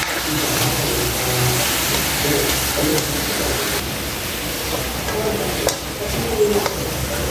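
Squid pieces sizzling in a hot wok while a spatula stirs them, with a few scrapes and taps of the spatula against the metal pan.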